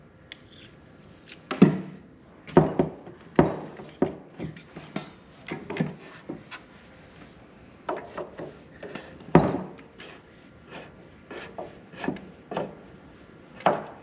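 Irregular knocks, clacks and scrapes of hand tools and metal parts being handled while a fastener on a table saw is worked loose, with a few louder knocks scattered throughout.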